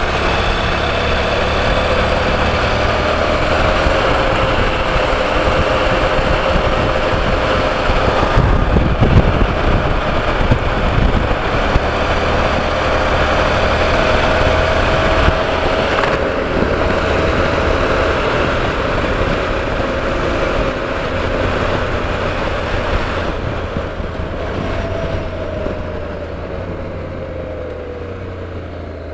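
Motorcycle riding at road speed, picked up by a helmet-mounted camera mic: a steady engine drone under wind rush, with a stretch of heavier low rumble about eight seconds in. Near the end the engine note drops and the sound fades as the bike slows.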